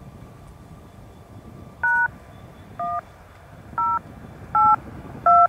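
Five DTMF touch-tone beeps on railroad radio, heard through a scanner, each a short two-note beep, about one a second, starting about two seconds in. Under them runs a faint low steady rumble.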